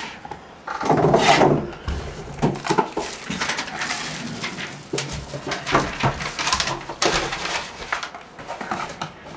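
Cardboard trading-card box being handled and opened by hand: sliding, tapping and scraping of the box and its flaps, with a louder scrape about a second in and quick clicks and rustles after it.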